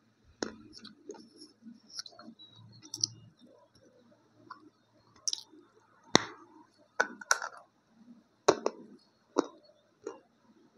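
A dry lump of multani mitti (Fuller's earth clay) being bitten and chewed, with irregular sharp cracks as the clay breaks between the teeth and soft chewing in between. The cracks are loudest and most frequent from about six seconds in.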